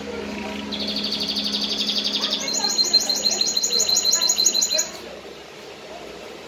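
Domestic canary singing: a rapid high trill starting about a second in, then a faster run of sharp repeated notes that stops suddenly about five seconds in. A faint low hum sits underneath.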